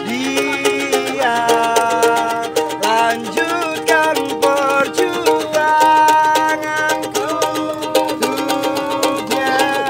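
A man singing a song with long, held notes while fast-strumming a small four-string ukulele.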